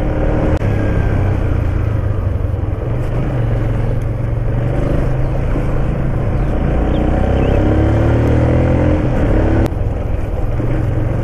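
A vehicle engine running steadily on the road, with wind rushing over the microphone; a few rising engine notes come in the second half.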